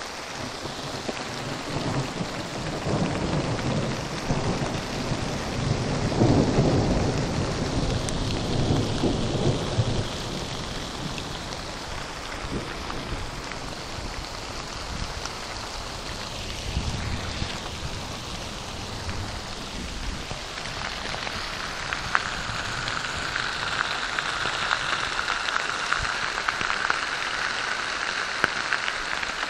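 Steady rain falling, with a long rolling rumble of thunder in the first ten seconds, loudest about six seconds in.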